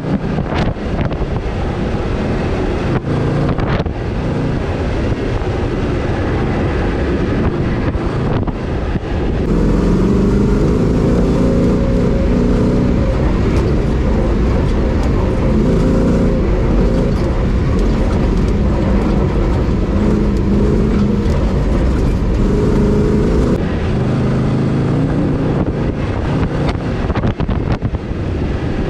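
Off-road 4x4 rally vehicle driven hard over a rough dirt track: the engine runs under load, its pitch rising and falling as the driver accelerates and eases off, over steady road and wind noise. A few sharp knocks in the first several seconds, from the suspension or body jolting over bumps.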